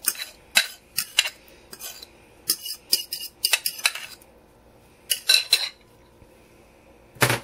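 A spoon scraping and knocking against a bowl and can in irregular bursts as black beans are spooned into a burger mixture, with a short lull a little past the middle and another near the end.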